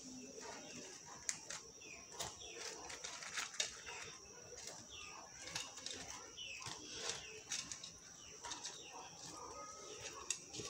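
Faint soft plops and light ticks as fried besan pakoras are dropped one at a time into hot kadhi in a steel kadai.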